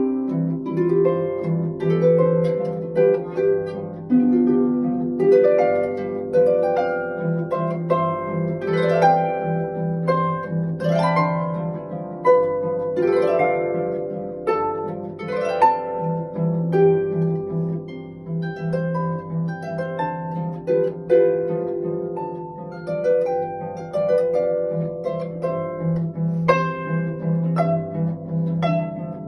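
Concert harp playing, its plucked strings sounding rippling arpeggios that sweep upward again and again over a recurring low bass note.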